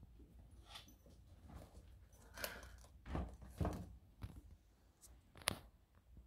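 Faint handling noises of a Balenciaga Triple S sneaker being turned over and set down on a tabletop: soft rustles and a couple of light knocks from the clear sole meeting the surface a little past halfway, then a single sharp click near the end.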